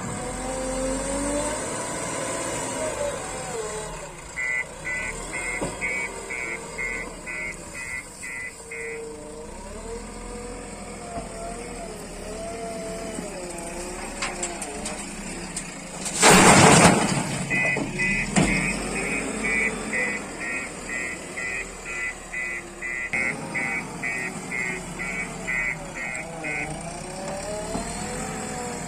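Backhoe loader's diesel engine running with its revs rising and falling under load, with a reversing alarm beeping steadily in two spells. About halfway through there is a loud, short hiss.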